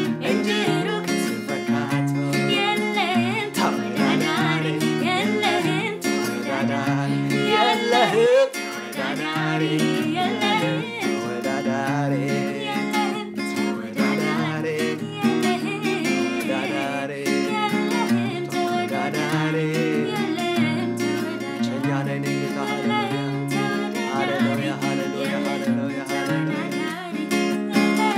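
Acoustic guitar strumming chords while voices sing a worship song over it.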